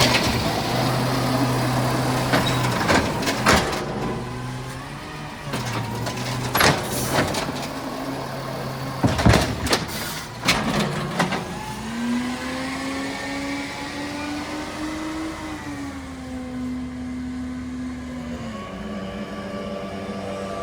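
Green-waste refuse truck running at the curb, with a series of clanks and bangs in the first half. About twelve seconds in, the engine speeds up, holds the higher pitch for several seconds, then drops back.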